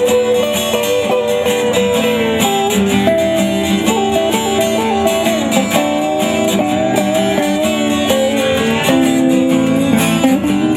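Instrumental passage of an acoustic folk-pop song: strummed guitar keeping a steady rhythm, with a melody line of held and stepping notes over it.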